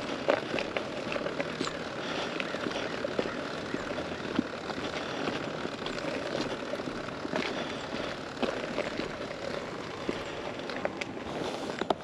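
Gravel crunching under a motorcycle's tyres and boots as the bike is moved with its engine off: a steady hiss with many small scattered clicks.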